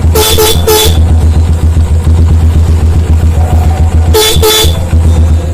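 Dual Denso car-type horns fitted to a motorcycle and wired through a relay, giving three quick toots and then two more about four seconds in.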